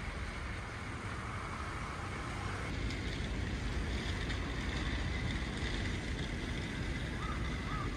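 Street ambience: a steady hum of road traffic with wind rumbling on the microphone. A few short chirps come near the end.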